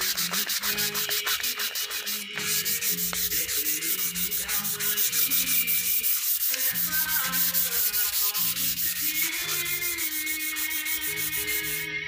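A wooden tabletop being sanded by hand with a folded sheet of sandpaper: quick back-and-forth rubbing strokes in an even rhythm, with a short pause about two seconds in.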